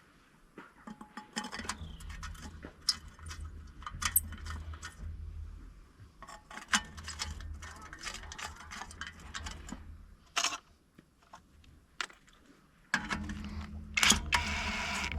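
Irregular metallic clicks and clinks of hand tools and bolts on the steel cover plate of a disc mower's end pod as it is bolted back on. A steady low hum runs underneath, drops out briefly and comes back louder near the end.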